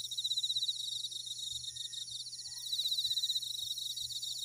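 Crickets chirping in a steady night chorus: a fast, pulsing trill, with more insects trilling higher above it.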